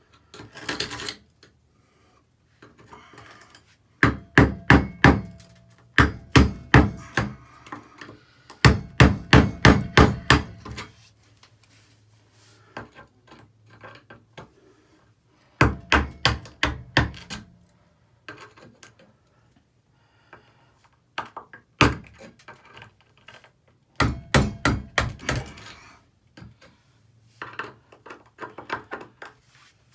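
Quick runs of sharp metal-on-grout strikes, about four or five a second, in bursts of one to two seconds with pauses between: a screwdriver chipping hardened grout out from around a tub and shower valve stem.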